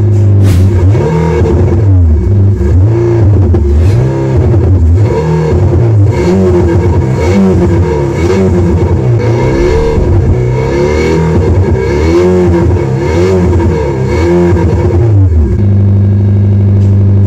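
THOR electronic exhaust on a Mercedes-Benz W207 E-Coupe, playing a synthesized engine sound set to a Renault Megane, blipped in quick revs about once a second, each rising and falling in pitch. It settles back to a steady idle near the end.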